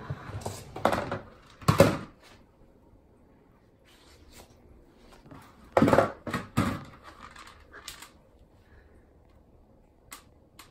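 Hard plastic knocking and clattering as a cat shoves at a plastic storage basket inside a large clear plastic bowl: a few knocks in the first two seconds, a louder cluster about six seconds in, and one short knock near the end.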